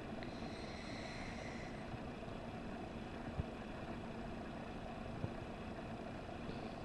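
A sleeping pet's slow breathing in deep sleep over a steady background hum: one faint airy breath from about half a second to two seconds in, then two small ticks later on.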